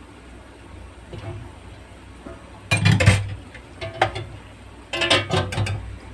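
Kitchenware being handled: several clusters of knocks and short metallic clinks, the loudest about three seconds in and more around four and five seconds, over a low steady hum.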